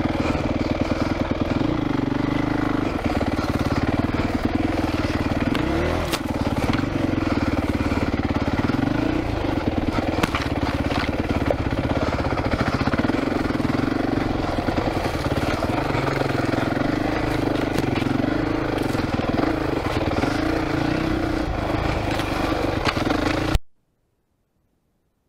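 Honda CRF450X dirt bike's single-cylinder four-stroke engine running at low revs that rise and fall, with brush scraping and clicking against the bike and rider. Near the end all sound cuts off suddenly: the microphone cable has been ripped out of the camera.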